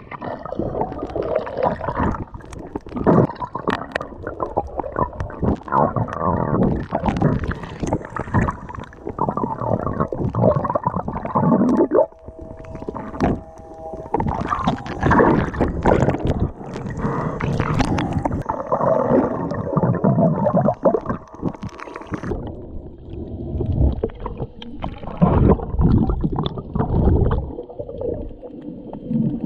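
Muffled underwater rushing and gurgling of water, with knocks and scrapes from the swimmer's movements and handling, heard from a camera under the water. A short steady hum comes in about halfway.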